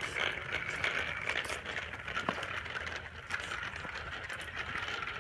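Small wheels rolling and rattling over an asphalt street, with light irregular clicks.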